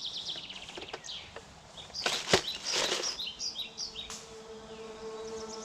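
Woodland birds singing, including a rapid high trill of repeated notes at the start and again near the end, with a few rustles and clicks about two seconds in. A steady low hum comes in about four seconds in.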